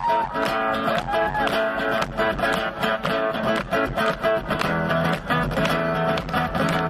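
Guitar strummed in a steady rhythm, playing a song.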